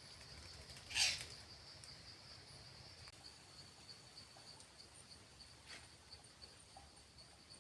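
Insects, likely crickets, trilling steadily in a high rapid pulse. About a second in comes one brief, sharp, loud sound, and a fainter one near the end.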